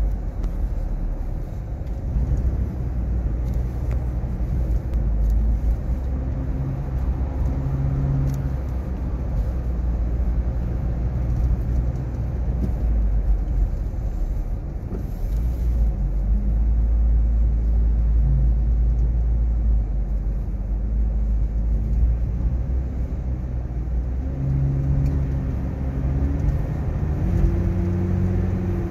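Steady low rumble of engine and road noise heard from inside a moving car's cabin, with a faint engine hum that rises in pitch near the end as the car speeds up.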